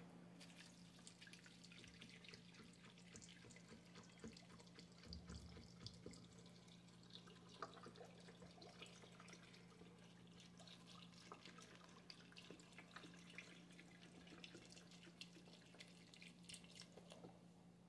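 Faint pouring of beef broth from a carton onto vegetables in a pressure cooker's inner pot, with small drips and trickles over a steady low hum.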